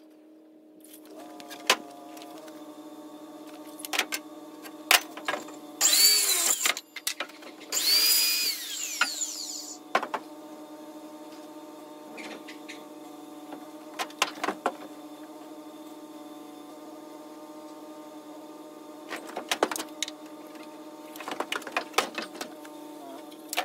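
Cordless drill driving screws into pine 2x4 bracing in two short runs, the motor pitch sweeping up and down as each screw goes in. Scattered knocks of lumber being set and shifted on the wooden blocks come before and after.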